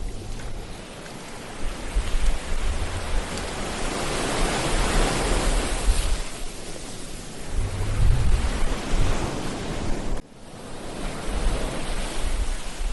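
Ocean surf: a wave breaks and washes up the beach, swelling to its loudest about five seconds in, with wind rumbling on the microphone in gusts. The sound drops out abruptly about ten seconds in, then builds again.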